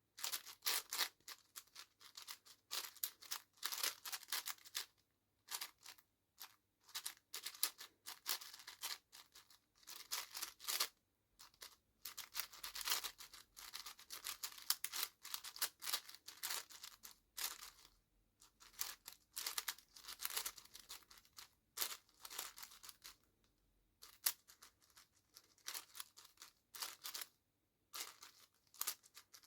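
Plastic 7x7 speedcube being turned fast during a solve: runs of quick clicking layer turns, broken by short pauses.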